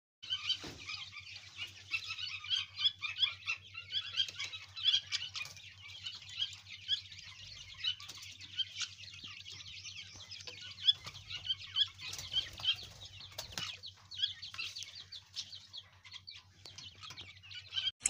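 A flock of chicks peeping: many short, high cheeps overlapping without pause, over a faint steady low hum.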